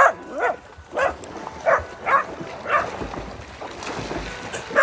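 A dog barking repeatedly, about six short barks in the first three seconds, then a pause before another bark near the end.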